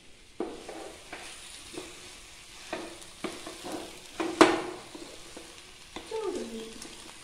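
A spatula stirring avial (vegetables coated in ground coconut) in a non-stick pan on the stove: soft scraping with several short knocks against the pan, the loudest about four and a half seconds in.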